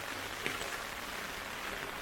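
Heavy typhoon rain falling steadily, with a single sharper drop hitting about half a second in.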